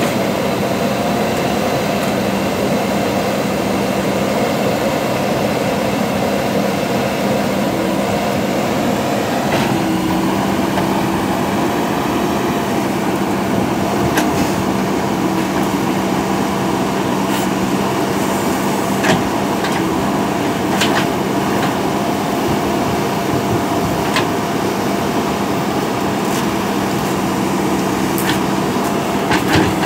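JCB backhoe loader's diesel engine running steadily under work, its note shifting about ten seconds in, with scattered short sharp knocks in the second half.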